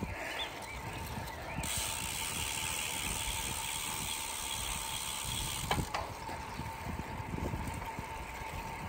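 Road bicycle rolling along a paved trail: steady tyre noise and wind rushing on the microphone. A brighter hiss comes in about a second and a half in and drops away near six seconds, where there is a single click.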